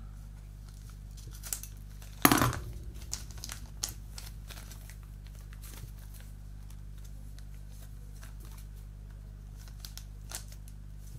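A clear plastic bag holding a photo-etched metal fret being opened and handled. There is one loud crackle of plastic about two seconds in, then lighter crinkling and small clicks as the fret slides out.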